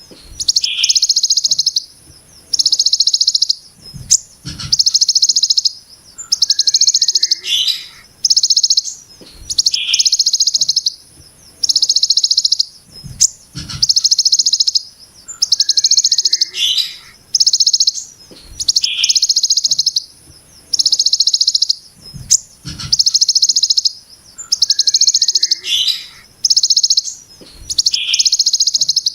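Ciblek gunung (mountain prinia) giving its 'brem' call: rapid, dense, harsh buzzing trills of about a second each, repeated every second or two. A few low thumps sound underneath.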